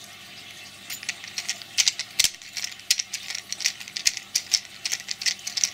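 Precision screwdriver turning the tiny screws of a microphone plug's cable-clamp saddle: irregular light metallic clicks and clinks of the bit and the metal plug, starting about a second in.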